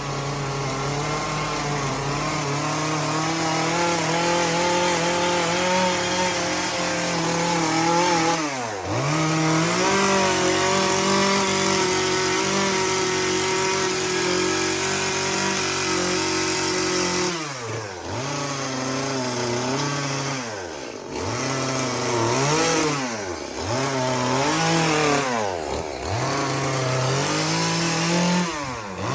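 Chainsaw running at high revs while carving a pine log, its pitch dropping and climbing back about six times as the throttle is eased off and opened again.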